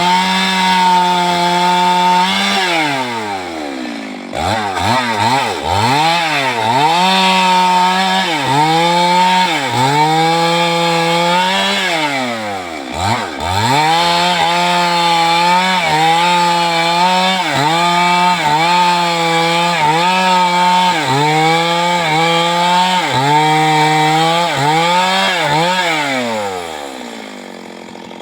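Chainsaw engine revving over and over: it climbs to full speed, holds for a second or two, then drops back, about a dozen times. Near the end the engine winds down and fades.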